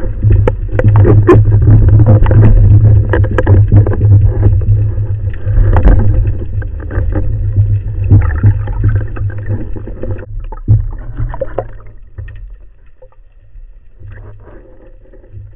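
Underwater rumble of water rushing over a speargun-mounted camera as a spearfisher swims up toward the surface, with scattered clicks and knocks. It fades about twelve seconds in.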